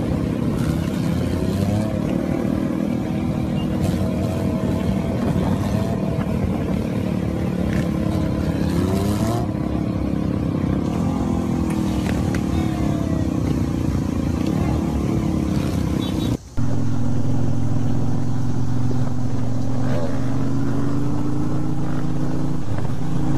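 Motorcycle engines running and revving, their pitch rising and falling. About two-thirds of the way through there is an abrupt cut, after which a steadier, louder engine drone continues.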